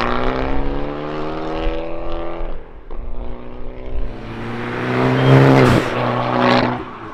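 Fiat Abarth 695's turbocharged four-cylinder accelerating through a Fi Exhaust valvetronic catback and sport downpipe. The exhaust note climbs in pitch, breaks at a gear change about two and a half seconds in, then climbs again to its loudest around five to six seconds before dropping away.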